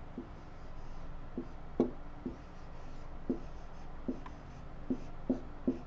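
Dry-erase marker writing on a whiteboard: a series of about ten short taps as the tip strikes the board, with faint scratchy strokes between them.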